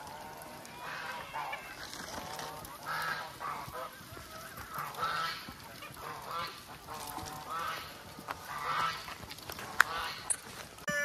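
A large flock of free-range chickens calling over one another, with repeated overlapping calls about once a second. A single sharp click comes near the end.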